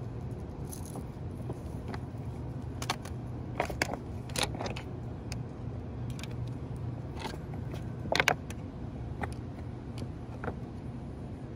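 Scattered short clicks and small metallic rattles of fishing tackle being handled, the loudest clusters about four and eight seconds in, over a steady low background rumble.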